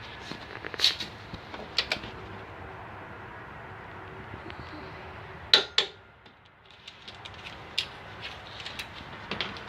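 Scattered metallic clicks and knocks of hand tools and hitch hardware being handled, the loudest a pair of knocks about five and a half seconds in, over a steady background hum that drops away just after.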